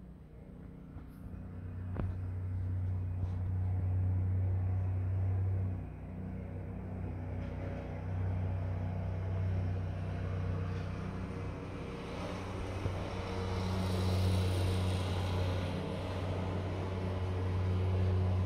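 A kitten purring close to the microphone: a low, steady rumble that swells and eases in slow waves.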